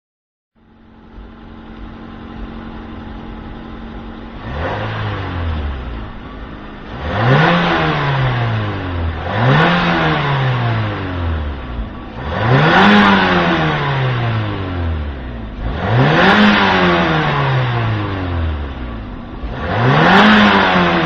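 Mazda2 four-cylinder engine through its stock exhaust, idling steadily, then revved about six times. Each rev climbs quickly and falls back to idle.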